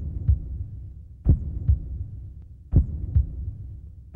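Heartbeat sound effect: a heavy low thump followed by a lighter one, the pair repeating about every one and a half seconds over a faint steady hum.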